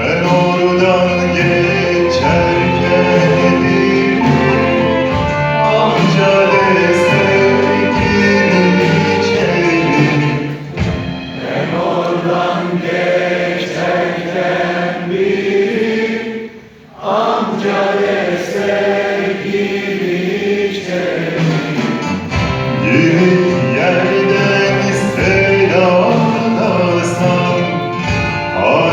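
Live orchestra playing with voices singing over it, the music dropping away briefly about halfway through before coming back in.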